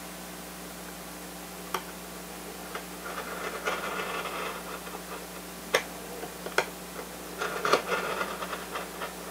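Hobby knife blade scoring 1/16-inch balsa sheeting along a metal ruler: two stretches of light scraping, with a few sharp clicks in between.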